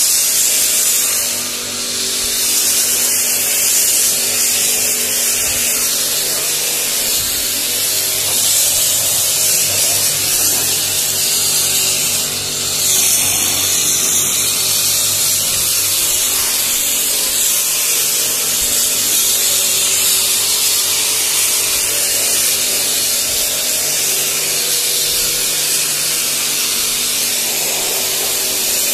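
StarQ W3 electric pressure washer running with a steady motor hum while its foam cannon sprays with a loud, continuous hiss. The level dips briefly twice, about a second and a half in and again about twelve seconds in.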